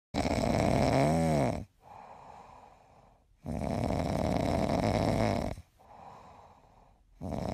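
Snoring in slow, even breaths: a rasping snore right away, another about three and a half seconds in and a third starting near the end, each followed by a much quieter breath out.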